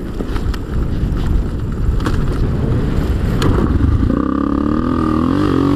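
Wind and tyre-on-gravel rumble of a Honda XR250R dirt bike coasting downhill with its engine silent, with a few sharp ticks. About four seconds in, the single-cylinder four-stroke engine catches and keeps running: a bump start, done by letting the clutch out while rolling downhill.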